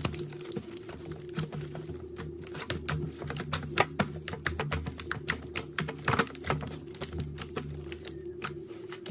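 Clear slime being squished and worked by hand, making a dense run of irregular sticky clicks and pops.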